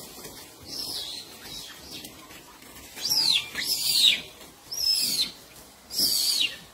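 High-pitched animal calls: about five short squeaks, each sliding down in pitch. The first is faint, about a second in, and the louder ones come in a cluster from about three seconds in.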